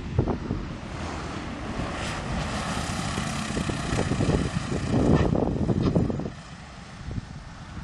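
A light propeller aircraft's engine swells in over gusty wind on the microphone, loudest around five seconds in, then drops away sharply about six seconds in.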